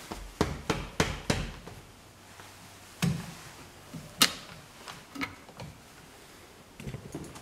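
Scattered knocks and clicks of hard objects being handled and set down: four quick knocks in the first second and a half, then single knocks about three, four and five seconds in.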